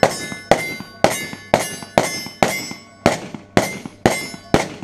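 Rapid handgun fire from Glock-pattern 9mm pistols, about two shots a second, roughly ten shots in all. Each shot is followed by a short metallic ring.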